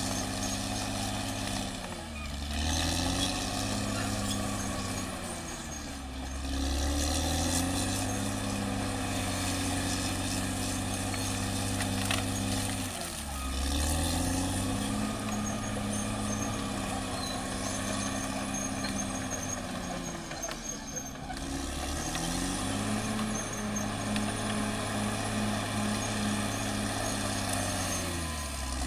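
Caterpillar D6R XL bulldozer's diesel engine working, its pitch dipping and then climbing back about five times, with a faint high whine over it.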